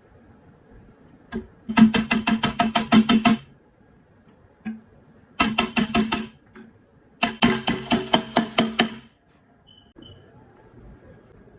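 Three bursts of rapid, evenly spaced knocks, about seven a second, each burst lasting one to two seconds, with short pauses between them.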